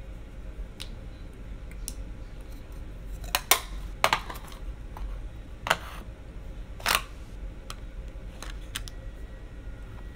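A series of sharp clicks and taps, about ten in all, the loudest a few seconds in and again near seven seconds, from makeup compacts, cases and brushes being handled, over a low steady hum.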